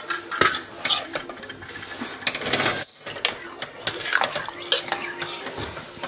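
Metal spoon stirring thick sambar in a stainless steel pressure cooker, clinking and scraping irregularly against the pot's sides, with a brief dropout a little before the middle.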